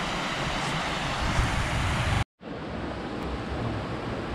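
Shallow mountain stream at the head of the Natisone river, rushing over stones in a steady wash of water noise. About two seconds in the sound cuts out for an instant, then the flow resumes a little softer and duller.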